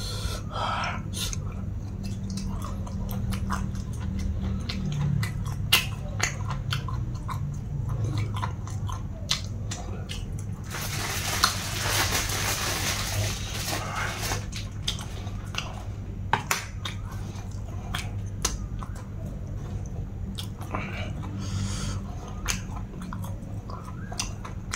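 Close-miked chewing and biting of food, with sharp mouth clicks and smacks scattered throughout and a stretch of hissing noise lasting a few seconds around the middle. A steady low hum runs underneath.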